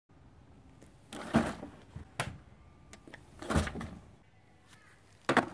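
A nylon backpack being handled: three short rustling swishes of fabric, one near the end, with a sharp click between the first two.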